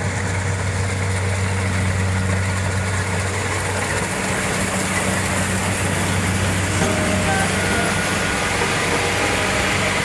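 Kubota combine harvester running steadily, a low engine hum under even machinery noise. Faint short tones come in about seven seconds in.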